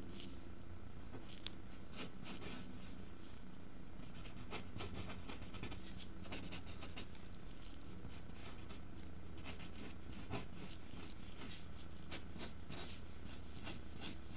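Pencil sketching on paper: a run of short, irregular scratching strokes as lines are drawn across the sheet.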